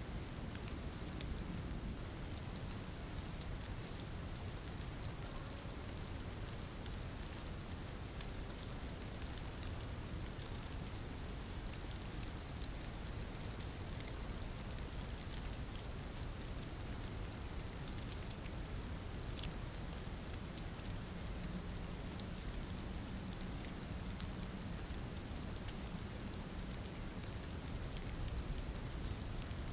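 Steady rain falling, with many fine drop ticks over a low rumble, unchanging throughout.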